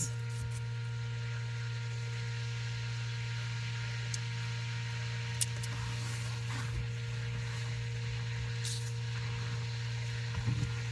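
A steady low hum, with a couple of faint clicks and a brief rustle partway through.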